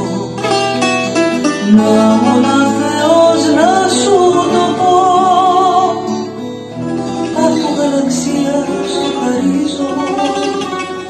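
Two acoustic guitars playing a Greek song together, with a woman singing the melody.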